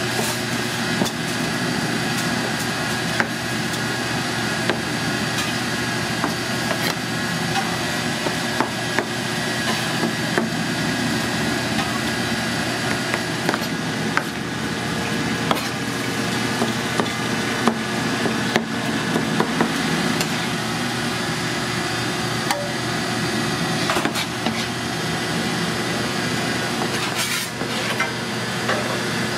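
Chef's knife chopping roasted red peppers on a cutting board: irregular knocks of the blade against the board, over a steady background hum.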